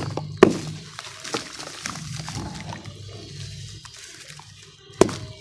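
Wet red dirt crumbled and squeezed by hand into a basin of muddy water: squelching and dribbling, with two sharp splashes of falling clumps, one about half a second in and one near the end. A steady low hum runs underneath.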